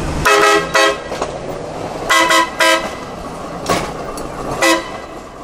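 Hi-rail utility truck sounding its road-vehicle horn in short toots: two quick toots at the start, two more about two seconds in, and a single one near the end. A low engine rumble drops away just as the first toot sounds.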